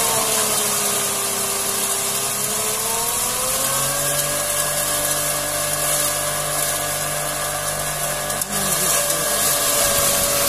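Electric straw-and-grain crusher (drobilka) running as it shreds straw, a steady motor whine over a constant rushing noise. The whine sags in pitch over the first couple of seconds and climbs back about four seconds in, as the motor takes the load of a fed bundle and then clears it.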